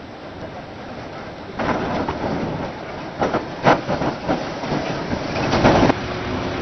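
Tram running past on its rails, with the wheels clattering over rail joints or points in a quick series of clacks. The noise starts suddenly about a second and a half in and cuts off abruptly near the end, leaving a steadier rumble.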